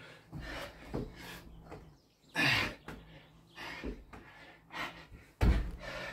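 Hard, heavy breathing and gasping from a man doing Navy Seal burpees, with dull thumps of hands and feet landing on the floor. The loudest thump comes near the end.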